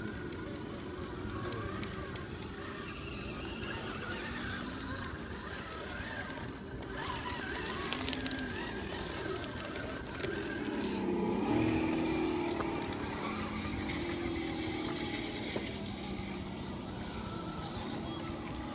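Electric motor and geared drivetrain of an RC rock crawler whining as it crawls. The pitch rises and falls with the throttle, and it is loudest about eleven seconds in.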